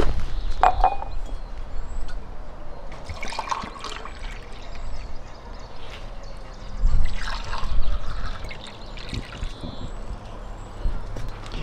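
Liquid pouring from a clay jug into drinking glasses, in several separate pours.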